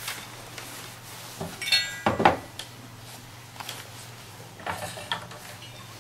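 Handling clatter of a digital multimeter and its test probes on a wooden table: a metallic clink and a knock about two seconds in, and a few lighter clicks near the end, over a faint steady low hum.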